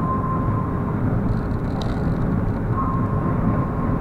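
Ambulance-conversion truck driving at highway speed: steady engine and tyre road noise, with a faint whine that fades in and out and a small click about two seconds in.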